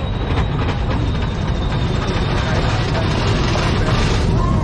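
Steady low rumble with a hiss of noise above it, from a moving vehicle.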